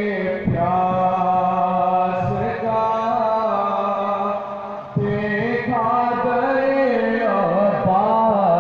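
Devotional chant sung in long, held notes with a wavering pitch over a steady drone. The singing dips just before five seconds in and comes back sharply.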